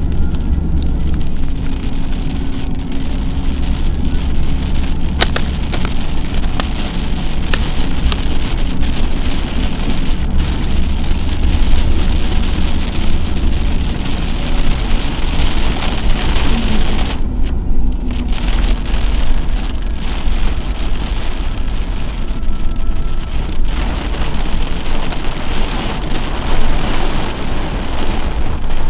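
Rain striking a moving car's windshield and body, with a scatter of drop ticks over a steady low rumble of road and engine noise.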